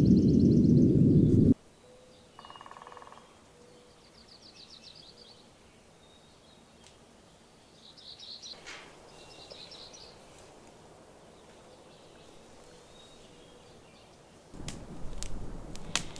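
Wild songbirds calling in quiet open air: several short, rapid high trills and one lower buzzy call. A loud low rumble cuts off suddenly about a second and a half in, and near the end a louder noise with sharp clicks starts.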